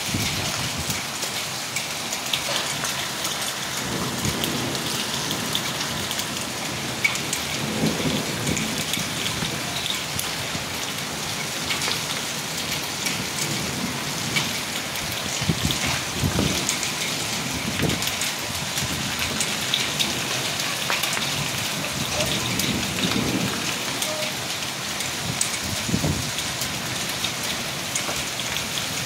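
Small hailstones falling with rain onto a paved street: a dense, steady patter thick with many sharp little ticks of stones striking the pavers.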